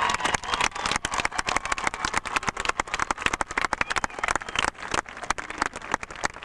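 Audience applauding, many hands clapping at once; the clapping dies away at the very end.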